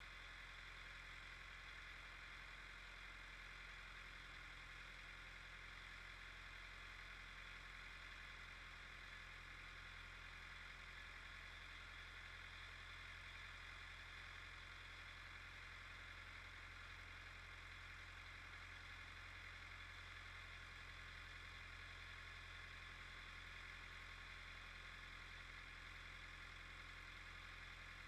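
Faint, steady running of a tractor engine, even and unchanging throughout.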